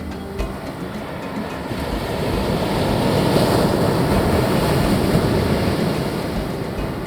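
Ocean surf: a rushing wash of noise that builds to a peak about halfway through and then eases off, like a wave breaking and running up the beach.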